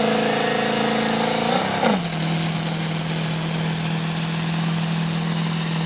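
6.0 Powerstroke V8 turbodiesel running hard while dragging a sled pull sled, with a high whine over the engine note. About two seconds in the engine pitch drops and then holds steady at a lower note.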